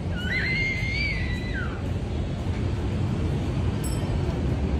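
Steady low outdoor rumble, with one high-pitched squeal near the start that rises, holds and then falls away over about a second and a half.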